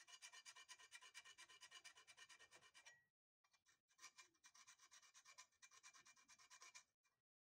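Faint, fast metal-on-metal scratching: a vernier caliper's jaw tip drawn rapidly back and forth over a steel part, scribing a mark, about ten strokes a second. It comes in two runs of about three seconds, with a short pause just after the third second.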